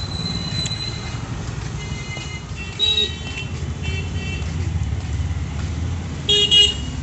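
Motor scooters running past on a street, a steady low engine rumble, with short high-pitched tones about three seconds in and a louder one near the end.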